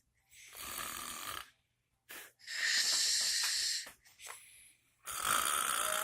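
A person snoring in three long, breathy, rasping snores, with short breaths in the gaps between them.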